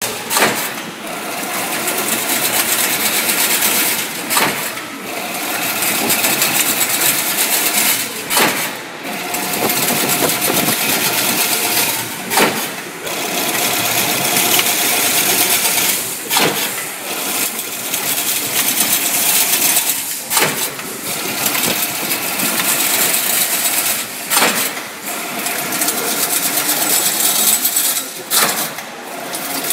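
Automatic chain-link fence machine weaving wire mesh: a continuous metallic clatter of the weaving mechanism, with a sharp knock about every four seconds as each cycle repeats.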